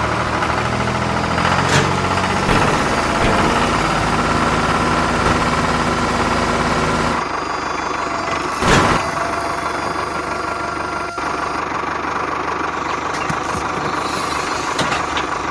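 Small motor of a home-built mini tractor running steadily with a whine as its front loader works. The sound changes abruptly about seven seconds in, and a single sharp knock comes about two seconds later.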